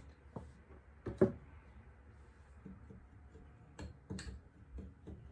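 A spoon clicking and scraping against a small bowl while mixing a spice masala with a spoonful of olive oil. The clicks are scattered, with one louder knock about a second in and a cluster of clicks near the end.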